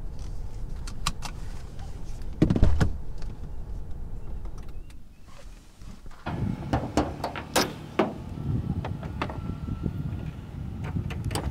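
Car door and bonnet handling on a Honda CR-V. A few clicks and a loud thump come about two and a half seconds in. After a short lull there is wind noise with sharp clicks and knocks as the bonnet is opened.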